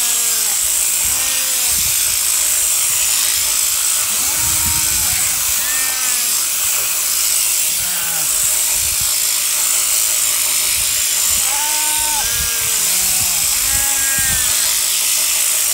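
Overhead-drive sheep shearing handpiece running steadily as it cuts through the fleece, with a high hiss from the comb and cutter. Short rising-and-falling calls come over it several times.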